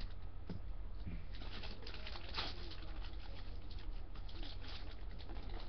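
Paper and plastic packaging being handled: irregular rustling and crinkling with small clicks, one more distinct crinkle about two seconds in, over a steady low hum.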